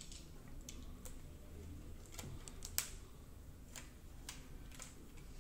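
Faint, scattered light clicks and taps of a smartphone being handled and turned over in the hands, with one sharper click a little before the middle, over low room hum.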